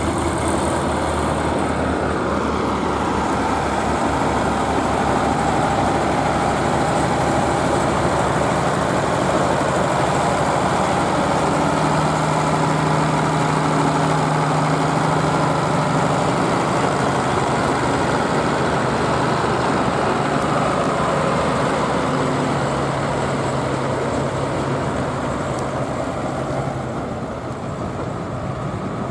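Zetor tractor diesel engines running under load with a tractor-drawn SKPU 220 forage harvester chopping maize. A steady, dense machinery noise with a low engine hum.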